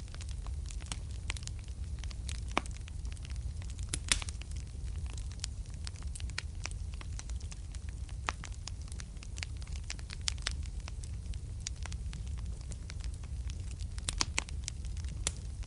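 Wood fire burning in a fireplace: a steady low rumble of flame with irregular crackles and sharp pops, the loudest pops about four seconds in and again near the end.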